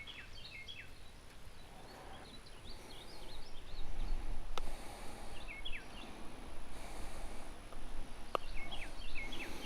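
A songbird calling in quick series of short, falling chirps, several bursts, with wind buffeting the microphone as a low rumble that swells in the middle. Two sharp clicks, about four and a half and eight seconds in.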